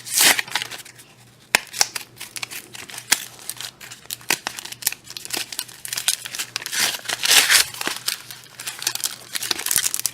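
Foil wrapper of a Yu-Gi-Oh! booster pack crinkling and rustling in the hands, with irregular small crackles and snaps.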